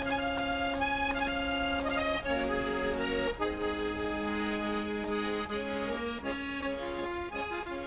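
Instrumental music: steady held chords under a melody line, moving to new chords about two and three seconds in, with the notes changing more quickly toward the end.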